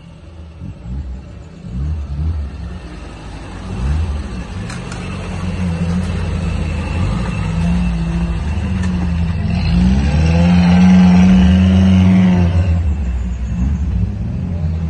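Lifted older-model Suzuki Jimny climbing a muddy, rutted trail, its engine revving up and down in low gear. It gets louder as the vehicle works past and is loudest a little past the middle, with a long rising rev.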